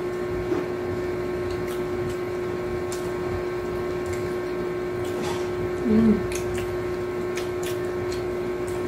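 Steady mechanical hum of a running appliance or fan, with scattered small clicks of people eating finger food and a short hummed "mm" about six seconds in.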